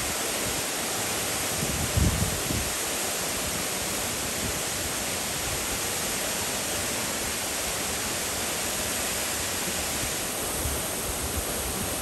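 Steady rush of water from Henrhyd Falls and the rocky stream below it, an even hiss with no breaks. A brief low thump about two seconds in.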